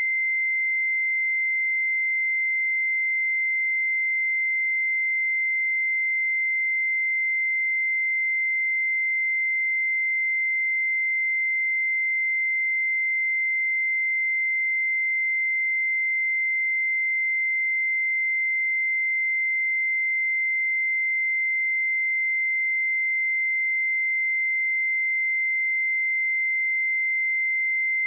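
A pure 2081 Hz sine-wave test tone, one steady high-pitched beep held at constant pitch and level.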